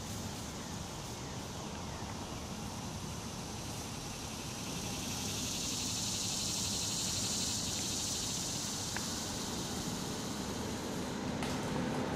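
Outdoor ambience with a steady rushing hiss. A higher hiss swells and fades in the middle, and a low engine drone comes in and grows louder near the end.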